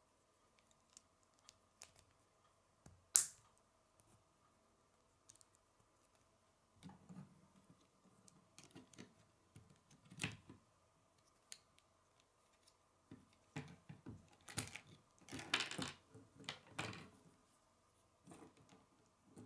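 Plastic K'nex rods and connectors clicking and snapping together as they are handled and assembled. There is one sharp snap about three seconds in, and a busier run of clicks and rattling in the second half.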